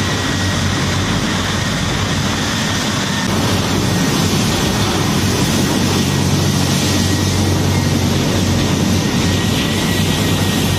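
Churning, rushing wake water off the stern of a catamaran ferry under way, a loud steady roar of spray with the ferry's engines droning low and steady underneath.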